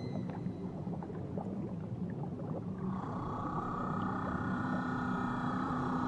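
Underwater ambience of dense crackling over a low steady hum; about halfway through, a whale begins a long, held call, a high tone with overtones that carries on to the end.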